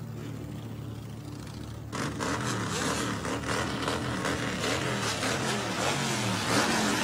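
Motorcycle engine idling steadily, then revved repeatedly from about two seconds in, louder, with the pitch rising and falling.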